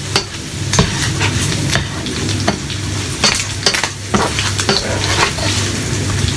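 Bacon and eggs frying with a steady sizzle, while a utensil clicks and scrapes against the pan many times.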